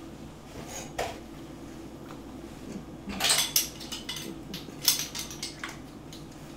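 Kitchenware being handled: a few sharp clinks and clatters, loudest in a cluster about three seconds in and again near five seconds, over a steady low hum.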